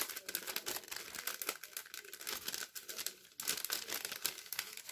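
Crinkling and rustling from craft materials being handled, a dense run of small irregular crackles.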